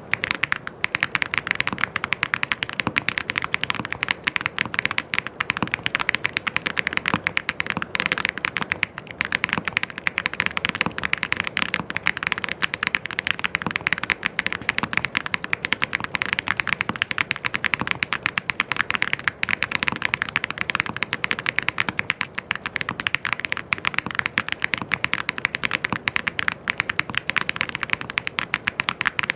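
Fast, continuous typing on a mechanical keyboard: a dense stream of key clicks and clacks, steady throughout.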